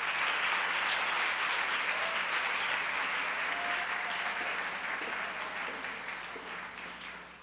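Audience applauding, strong at first and fading away over the last couple of seconds.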